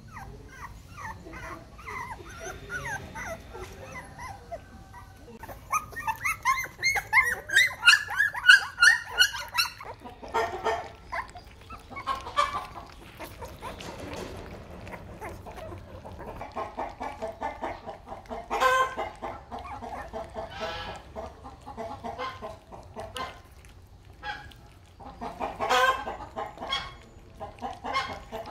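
Puppies eating from a shared bowl of soft rice-and-pig-liver porridge, with wet smacking and lapping. In the first ten seconds there are many short, high, falling squeals and whimpers, loudest in a run of about four seconds.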